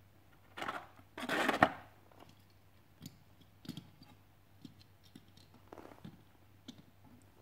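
Clear plastic blister tray crackling in two short bursts as a diecast toy car is pulled out of it, the second the louder, followed by a few light clicks and taps as small diecast cars are set down on a wooden shelf.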